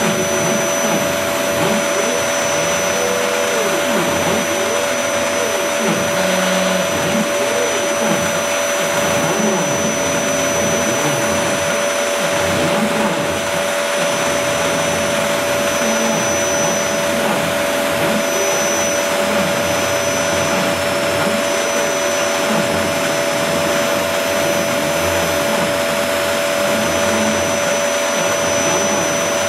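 ShopBot CNC router running a vinyl-cutting job: a loud, steady whirring hum with a steady whine over it. Lower motor whines rise and fall in pitch underneath as the gantry moves the blade.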